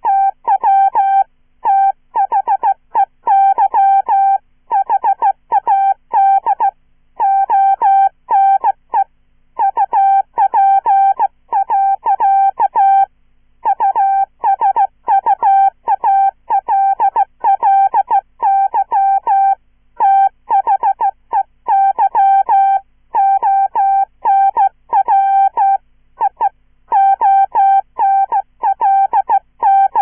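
Hand-sent Morse code at about 15 words per minute: a synthesized 'chirpy' mid-pitched beep keyed on and off by a straight key, in short dits and longer dahs grouped into letters and words with pauses between. Each beep starts with a brief chirp.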